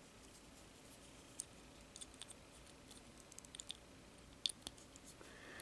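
Faint, scattered clicks and taps of small plastic model-kit parts being handled and pressed together.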